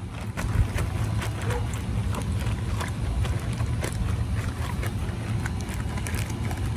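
Plastic bag of borax water and glue mixture being shaken and squeezed, with crinkling plastic and sloshing, squelching liquid as the slime starts to form. Many quick crackles sit over a steady low rumble.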